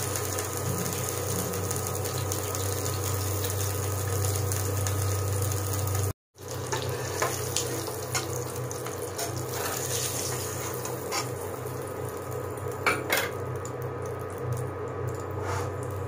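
Boiled eggs sizzling as they fry in hot oil in a pan, with a steady low hum underneath. The sound breaks off briefly about six seconds in, and later a plastic spatula clicks and knocks against the pan as the eggs are turned and lifted out.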